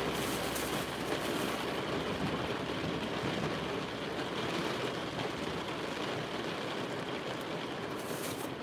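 Heavy rain falling on a vehicle's roof and windows, heard from inside the cab as a steady wash of noise.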